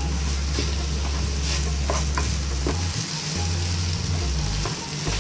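Soaked, drained rice sizzling in hot ghee with whole spices as it is stirred in a pan, with a few scrapes and taps of the spoon against the pan over a steady low hum.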